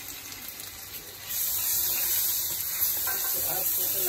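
Dry masala sizzling in hot oil in a kadhai while it is stirred with a spatula; the sizzle grows louder about a second in.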